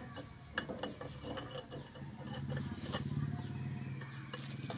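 Irregular metal clinks and knocks of tractor dry disc brake parts being handled and fitted: the brake discs and plates clattering against each other and the axle brake housing, over a steady low hum.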